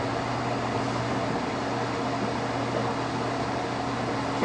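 Electric desk fan running: a steady, even hiss with a low hum underneath.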